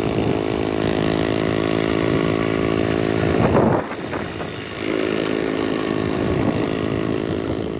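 Small 50cc Super Cub single-cylinder engine running as the mini chopper is ridden along, with a steady note. About three and a half seconds in it revs up, then drops and quietens for about a second before settling back to its steady running.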